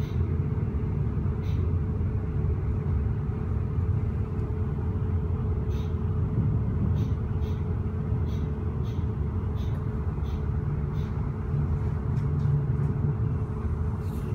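Interior of a modernised second-class passenger coach running along the track: a steady low rumble. A series of light clicks at about two a second comes through the middle.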